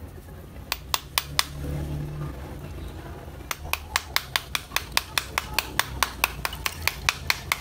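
Small hammer tapping a slab of roasted multani mitti (fuller's earth clay), giving sharp clicks. A few scattered taps come about a second in, then quick, even taps at about five a second from about halfway on.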